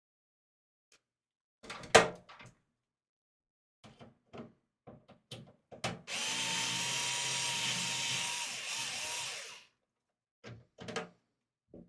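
Handling knocks and clicks of tools on a PC case, the sharpest about two seconds in, then a power drill/driver runs steadily for about three and a half seconds with a held whine, working at a stubborn screw, followed by a few more clicks.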